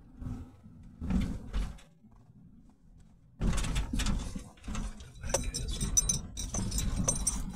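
Rattling, clinking and knocking inside a car's cabin over a low road rumble as it drives a rough, patchy road. It goes quiet for about a second around the middle, then comes back busier and louder.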